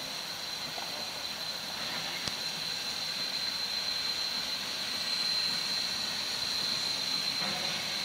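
Ww 644 steam tank locomotive pulling a train slowly away, a steady hiss of steam with a thin high-pitched whine running through it, growing slightly louder midway.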